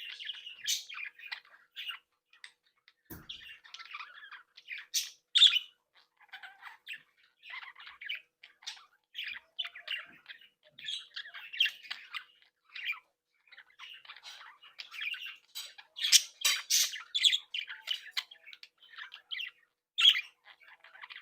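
A flock of budgerigars chattering: a dense mix of warbling chirps and harsh squawks, with sharper, louder squawks about five seconds in, around sixteen seconds in, and near the end. A single soft knock sounds about three seconds in.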